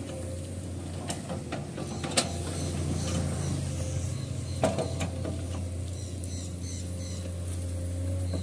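Komatsu PC210 hydraulic excavator's diesel engine running steadily under load as it digs soil, with a few sharp clanks from the bucket and arm about one, two and four and a half seconds in.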